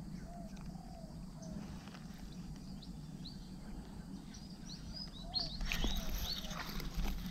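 Small birds chirping in short calls. About five and a half seconds in come louder scrapes and knocks as a baitcasting rod and reel are gripped hard to strike a fish.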